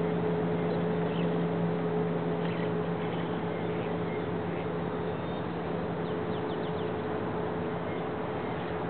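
Radio-controlled model boat's motor humming steadily at one pitch, with a higher steady tone above it, over an even hiss. A few faint bird chirps come about six to seven seconds in.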